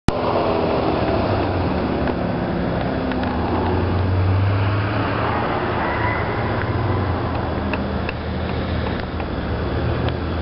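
Chevrolet Corvette V8 engine running at low, fairly steady revs, swelling a little about four seconds in.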